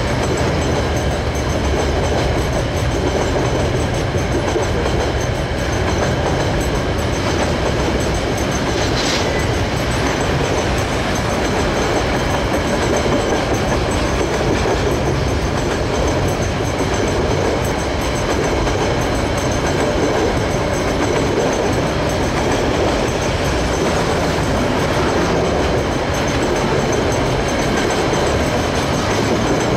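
Freight train passing close by: diesel locomotive engines and rolling wagons, with wheels clicking over the rail joints. The sound is loud and steady.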